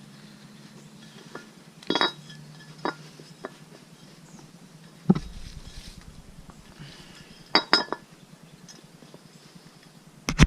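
Metal parts and tools clinking as a motorcycle stator is handled and set in place: a few sharp, separate clinks, two of them close together near the end. A faint low hum stops about halfway through.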